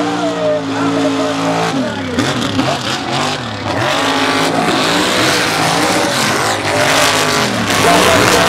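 Mega truck engine revving hard, its pitch rising and falling again and again as the throttle is worked. A loud rushing noise builds over it in the second half.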